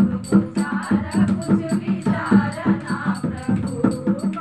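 Women's voices singing a Hindi devotional bhajan over a steady beat of rattling hand percussion, about three strokes a second.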